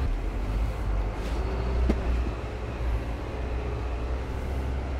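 Isuzu NPS 4x4 truck's diesel engine running under way, heard from inside the cab as a steady low rumble, with one sharp knock about two seconds in.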